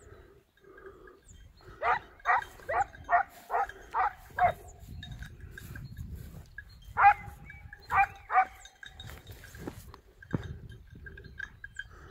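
Swiss hound (Schweizer Laufhund) baying while hunting: a quick run of about seven barks, then, after a short pause, three more.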